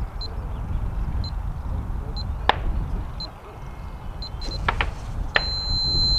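Low rumble of wind on the microphone, broken by sharp cracks of distant gunfire from a gun club: about four or five shots, the loudest about two and a half seconds in. Short high beeps sound about once a second, turning into one long steady beep near the end.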